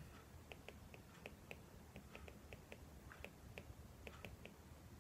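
Faint, irregularly spaced clicks of a stylus tapping on a tablet's glass screen during handwriting, a few each second, over near-silent room tone.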